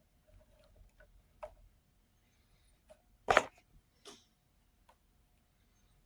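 Scattered small clicks and taps from handling small parts at a workbench, with one sharper, louder click a little past halfway.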